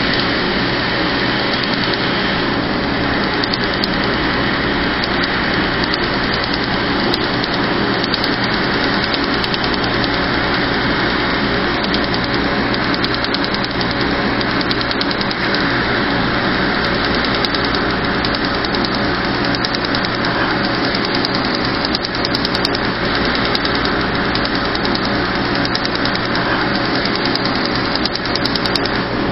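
Steady rush of a cold-air skin chiller blowing on the treated skin over the hum of a tattoo-removal laser unit, with rapid faint ticking of the laser pulses firing.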